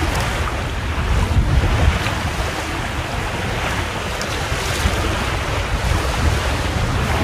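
Wind buffeting the microphone in a steady low rumble, with waves and water rushing along the hull of a small sailboat under sail, swelling into a few louder swishes.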